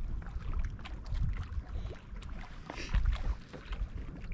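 Wind gusting over the microphone in an uneven low rumble, with small lake waves lapping against the shoreline rocks and a scatter of faint ticks.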